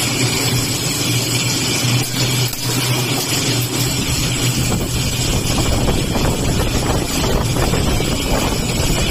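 CNC 2D flat bar bending machine running, a steady hum under a broad hiss; a rougher low rumble joins in about halfway through.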